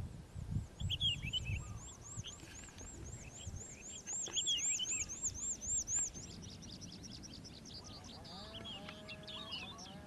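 Lark song in the open field: a long, rapid run of repeated high arched notes at about four a second, loudest around four to six seconds in and stopping near six seconds. Scattered lower chirps and trills from other birds are mixed in, and there are low rumbling thumps in the first couple of seconds.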